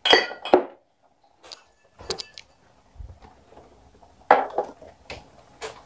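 Kitchen clatter: separate clinks and knocks of utensils and containers being handled and set down on a countertop. There is a cluster right at the start, another about two seconds in with a brief metallic ring, and more a little after four seconds.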